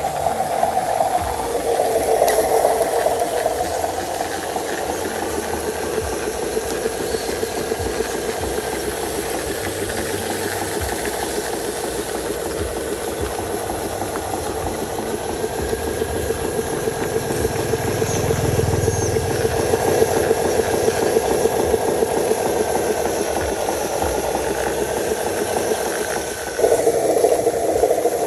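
Radio-controlled model Hino semi-truck's electric drive motor and gearbox running steadily as it crawls over grass, a busy gear whirr with a thin whine that drifts up and down with speed. About a second and a half from the end it steps up louder.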